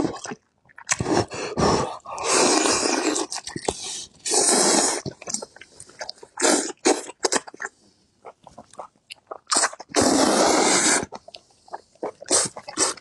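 A person slurping up braised octopus tentacles and chewing them, close to the microphone: three long, loud slurps, with wet chewing and lip-smacking clicks between.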